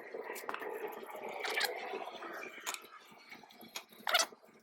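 Hand scraping and rubbing on a motorcycle silencer as it is cleaned up during a repack, with small clicks and knocks of the parts being handled and a louder scrape about four seconds in.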